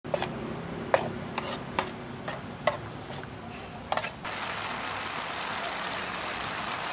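Pork pieces frying in sauce in a pan, sizzling, while a spatula stirs them, clicking and scraping against the pan about seven times. About four seconds in the stirring stops and the sauce keeps up a steady sizzling bubble.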